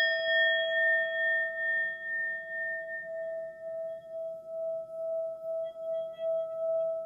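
A singing bowl struck once at the start, ringing on with a slow wavering pulse. Its higher overtones fade within about four seconds while the low tone keeps sounding, and a faint higher shimmer joins near the end.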